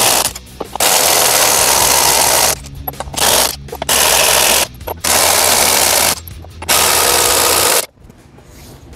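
Cordless impact wrench hammering on a semi truck's front wheel lug nuts to remove them, in about six bursts of up to two seconds with short pauses between, stopping about eight seconds in.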